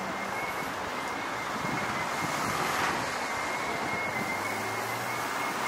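Steady road traffic noise from cars passing on a wide city street, with a thin, steady high-pitched tone underneath.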